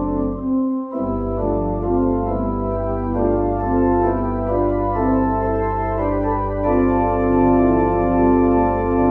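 Organ music: held chords and a moving melody over a sustained low bass note, with a short break about half a second in before a new chord starts.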